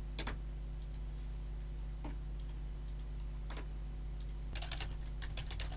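Computer keyboard typing: a few isolated clicks, then a quick run of keystrokes near the end, over a low steady electrical hum.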